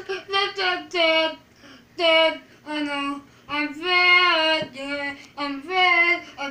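A child singing unaccompanied: a string of high, held notes with short breaths between phrases.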